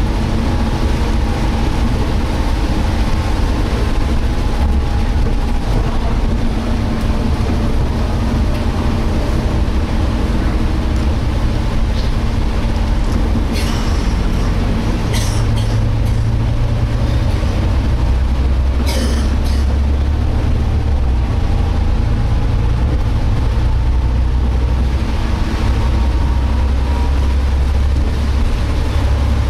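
Volvo B7TL double-decker bus heard from inside while under way: the engine and drivetrain rumble steadily, with a faint whining tone that slowly rises and falls, the strange noise the rider puts down to the differential. A few sharp rattles come midway.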